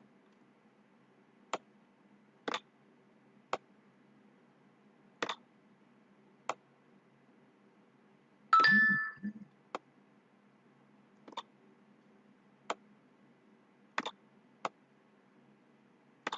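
Scattered single clicks of computer keys, roughly one a second. About halfway, one louder short clatter with a brief ringing tone.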